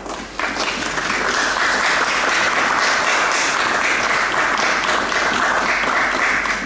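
Crowd applauding: a few scattered claps, then from about half a second in dense, steady applause.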